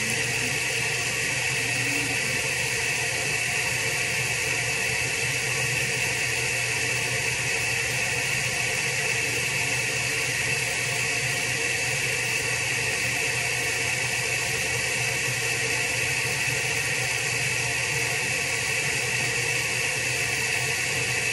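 Steady, unchanging hiss with a low hum underneath.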